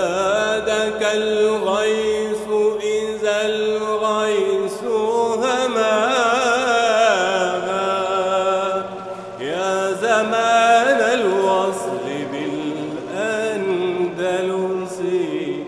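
Vocal chant: a single voice sings a wavering, ornamented melody over a steady low held note, with a brief break about nine seconds in.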